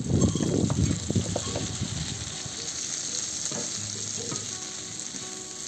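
Sliced champignon mushrooms sizzling on a hot saj, a convex metal griddle, while a wooden spatula scrapes across the metal to stir them. The scraping strokes come mostly in the first two seconds, then a steady sizzle carries on.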